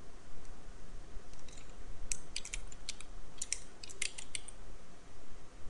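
Typing on a computer keyboard: a quick, uneven run of a dozen or so key clicks from about one and a half to four and a half seconds in.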